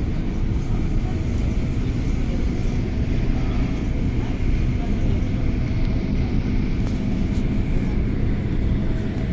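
Cabin running noise of an MTR Tung Chung line CAF train at speed: a steady rumble of wheels on track with a faint steady hum through it.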